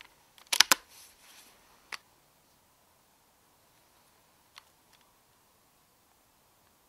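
Shots from a moderated Walther RM8 UC air rifle: a close pair of sharp cracks about half a second in and a single crack near two seconds, then two faint clicks about four and a half and five seconds in.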